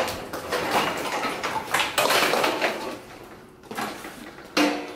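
Clattering knocks of a metal hand cart and household items (a floor lamp, broom and dustpan) being moved and set down, with several sharp knocks in the first three seconds and quieter handling after.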